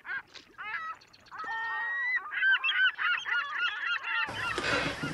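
Seagulls calling: a run of short repeated cries, then longer rising-and-falling calls that overlap one another. Near the end it cuts abruptly to room noise.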